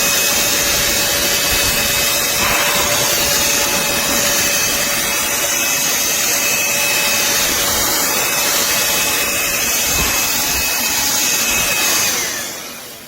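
Black+Decker Dustbuster cordless handheld vacuum running: a steady rush of air with a high motor whine, switched off about twelve seconds in and winding down.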